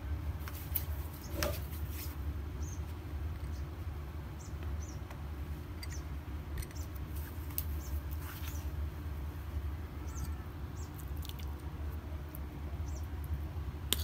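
Steady low room hum with light clicks of crockery being handled and set down on a table, a few sharper ones in the first two seconds, and scattered faint short high chirps.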